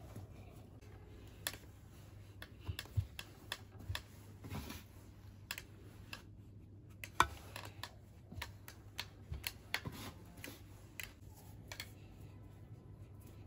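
Irregular light clicks and taps of moulding sand being scooped, dropped and pressed by hand around a steel spatula pattern in a wooden flask, with a sharper tap about seven seconds in. A faint steady low hum underneath.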